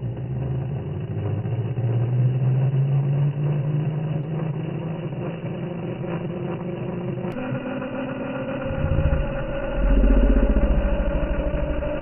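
Toy RC helicopter's small electric motor and rotors running steadily, the pitch slowly creeping upward. The sound changes about seven seconds in, and a deep rumble joins it from about nine seconds in.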